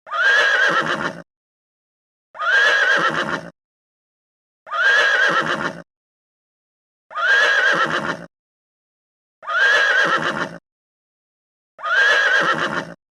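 Horse whinnying: the same whinny repeated six times, about every two and a half seconds, each a little over a second long with a wavering, quivering pitch, and dead silence between.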